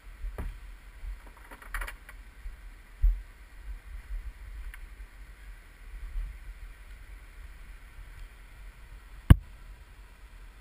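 Low rumble of wind and handling noise on a GoPro action camera's microphone as it is carried, with a few soft knocks and one sharp click near the end.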